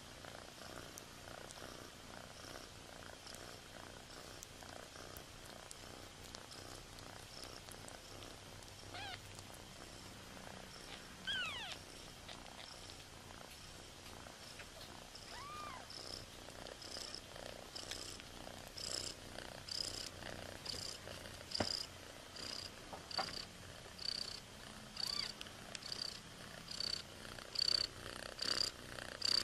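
Cat purring steadily, with a few short, high kitten squeaks in the first half. In the second half a regular pulsing, about one and a half beats a second, grows louder toward the end.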